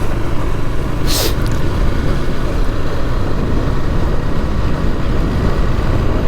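Motorcycle riding along a road, the engine and heavy wind buffeting on the rider's microphone making a steady low rumble. A short hiss cuts through about a second in.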